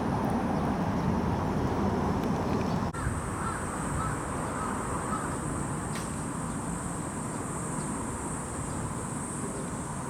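Outdoor ambience: a steady low rumble throughout. After a cut about three seconds in, a steady high-pitched hiss comes in, and a bird calls faintly several times over the next few seconds.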